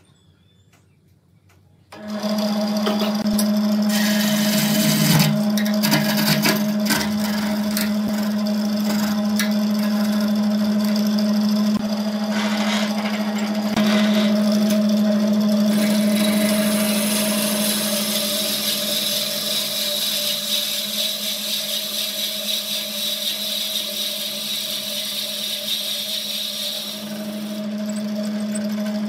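Wood lathe starting about two seconds in and running with a steady motor hum, while a boring bit held against the spinning wooden vase bores out its mouth with a hissing, scraping cut.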